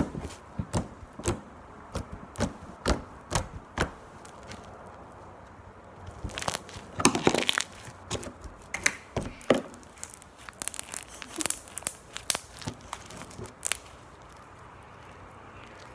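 Pink slime being squeezed and pressed between the hands, making sharp clicks about two or three a second, then a denser run of crackling clicks that stops about two seconds before the end.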